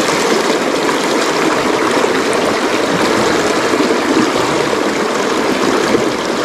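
A shallow rocky stream runs steadily over stones through a small riffle.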